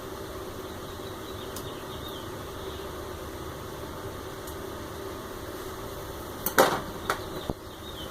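Steady low hum, then a brief cluster of four or five sharp clicks and clacks about six and a half seconds in: small metal hardware and tools knocking against the acrylic printer frame during assembly.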